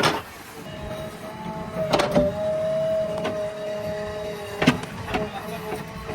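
JCB backhoe loader running, with a steady hydraulic whine over the engine. The whine steps up in pitch about half a second in and drops back near the end, and sharp knocks of the bucket or arm come several times.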